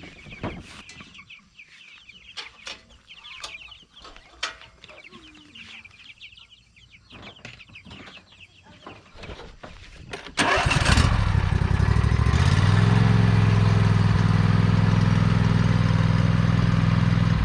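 Meat chickens calling with a few knocks and clicks, then a lawnmower engine starts abruptly about ten seconds in and runs steadily, ready to tow the chicken coops.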